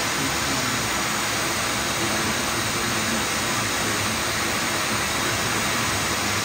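Onefinity CNC router running with its spindle and dust-boot extraction on: a steady, even rushing noise with no pauses or changes.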